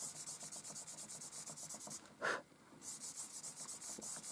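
Fingertip rubbing compressed charcoal into paper to blend it, a quick rhythmic back-and-forth scratchy rubbing. It breaks off about two seconds in with a short louder sound, then starts again.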